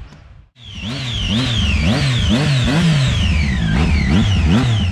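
Triumph Daytona 675's three-cylinder engine revved in a run of quick throttle blips, starting about half a second in, each one rising and falling in pitch. Over the exhaust note sits a high whistle that climbs and drops with the revs: the Triumph triple's characteristic whistle.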